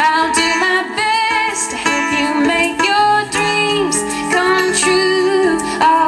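Live acoustic song: a woman singing over a small plucked acoustic string instrument.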